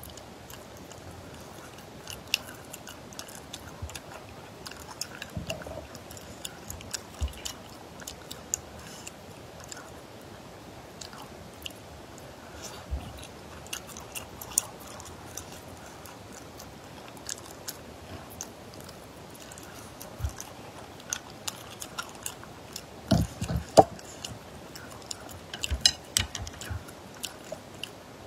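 Close-up mouth sounds of eating spicy stir-fried snails: chewing with scattered small sharp clicks. A louder cluster of clicks comes about four fifths of the way in.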